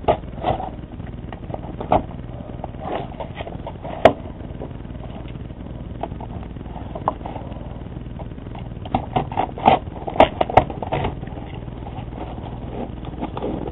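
Hands opening a mailed package: scattered short scrapes, crinkles and taps of handled packaging, busiest from about nine to eleven seconds in, over a steady low hum.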